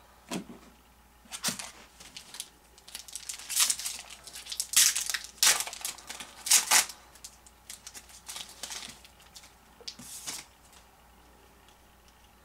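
A trading-card pack wrapper being torn open and crinkled: a run of irregular crackling rustles, loudest in the middle and dying away near the end.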